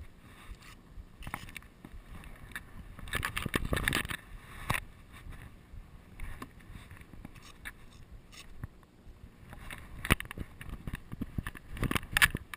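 Irregular rustling, scraping and knocks on the camera's microphone, coming in bursts, as the camera is moved and handled.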